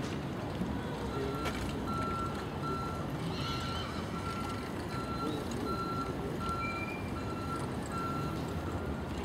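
Open-air showground background noise with a vehicle's reversing beeper sounding steadily, about one beep every 0.6 seconds, and a brief high wavering call about three seconds in.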